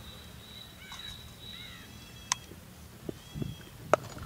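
Cricket-ground ambience with faint bird calls and a thin, steady high whistle in the first half. Near the end comes a single sharp crack as the batsman swings, the cricket bat striking the ball.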